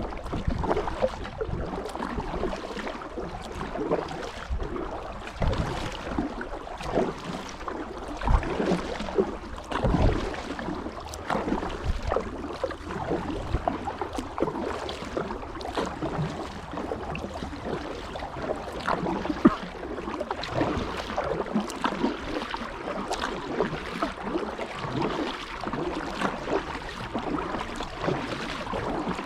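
Kayak paddle strokes in the water: continuous splashing and dripping with many small irregular splashes.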